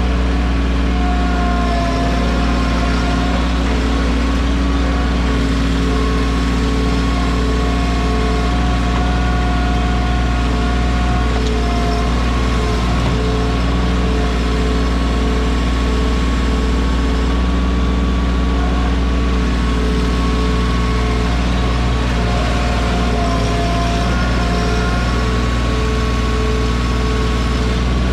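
Mahindra 1626 compact tractor's diesel engine idling steadily.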